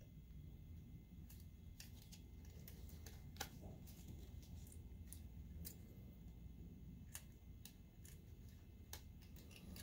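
Faint, scattered clicks and light taps of gloved fingers routing a thin wire under a circuit board inside a projector, with one sharper click about three and a half seconds in.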